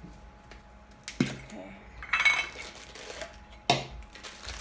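Metal lid of a Funko Soda tin can being worked off by hand, then set down on the table. There is a sharp metallic click about a second in, a short ringing clink around the middle, and another sharp clack near the end.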